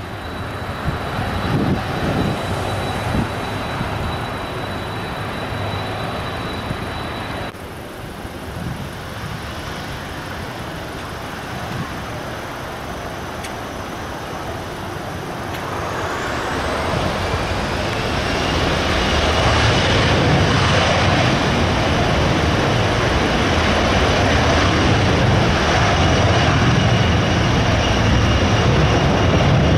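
Boeing 737-400 jet engines (CFM56 turbofans) whining steadily at taxi power. About halfway through, the engines spool up with a rising whine and the noise grows to a loud, steady roar of takeoff thrust.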